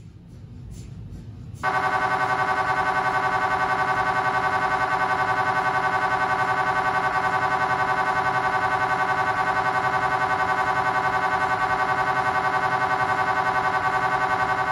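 GE Signa Excite 1.5T MRI scanner running a sagittal T1 FLAIR (fast inversion recovery) sequence: its gradient coils start abruptly about two seconds in and then hold a loud, steady, rapidly pulsing buzz-tone.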